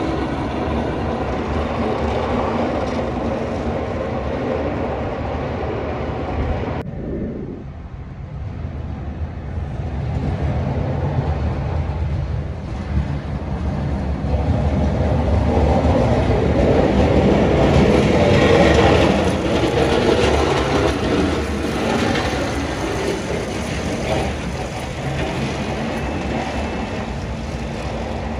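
Heavy New York City sanitation trucks (salt spreaders and plows) running along a snow-covered street, a steady low rumble. It dips suddenly about seven seconds in and swells to its loudest about two-thirds through.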